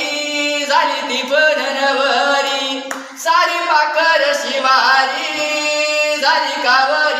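A man singing solo into a microphone, in long, wavering sung lines with no instruments heard, and a brief pause for breath about three seconds in.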